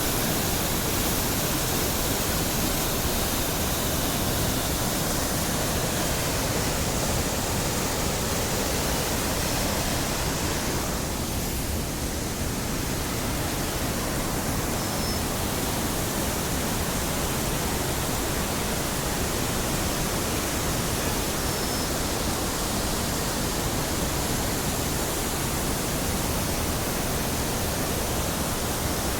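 Waterfall: the steady, dense rush of falling water, thinning slightly for a moment about eleven seconds in.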